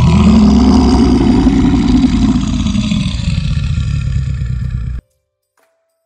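A bear growling: one long, loud, rough growl of about five seconds that eases off toward the end and cuts off suddenly.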